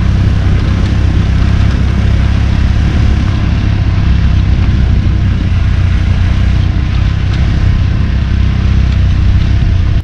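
Suzuki GZ150 single-cylinder motorcycle engine running steadily at an even speed while riding, loud and unchanging, with a steady hiss of wind and road noise over it.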